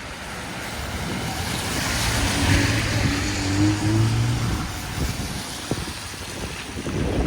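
A motor vehicle passing close by: engine hum and tyre noise swell up, loudest about two to four seconds in, then fade.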